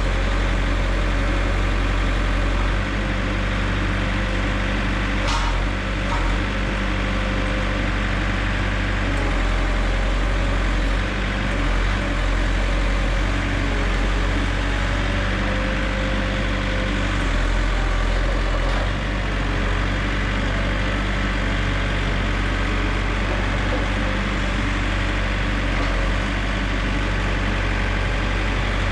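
Heavy machine engine running steadily with a deep, even drone, as equipment loads a log onto the sawmill.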